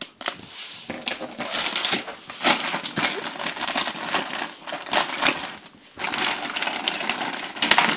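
Thin clear plastic parts bag crinkling and rustling as it is handled and cut open with scissors, with small plastic toy parts clicking against each other near the end.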